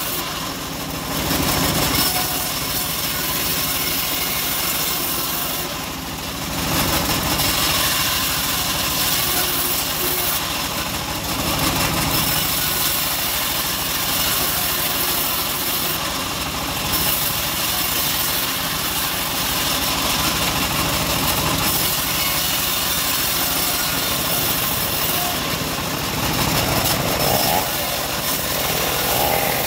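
Homemade bandsaw mill running and ripping boards of old teak: the machine's motor runs steadily under the hiss of the band blade cutting wood. The cutting noise eases off briefly several times as one pass ends and the next board is fed in.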